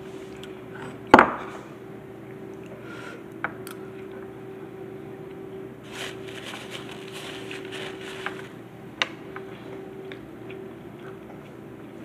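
Spoon clinking against a ceramic bowl during eating: one sharp, ringing clink about a second in and a few lighter taps later. A stretch of rustling around the middle, and a steady faint hum underneath.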